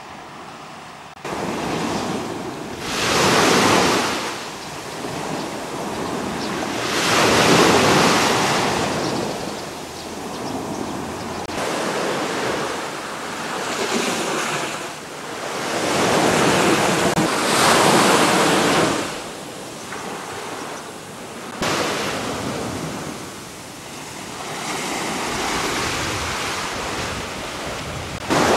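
Sea surf washing onto a beach, each wave rising and falling away every four or five seconds, with some wind on the microphone.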